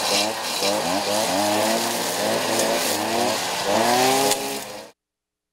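Several petrol string trimmers (brushcutters) running together, their engines surging up and down in pitch again and again as the throttles are worked. The sound cuts off suddenly near the end.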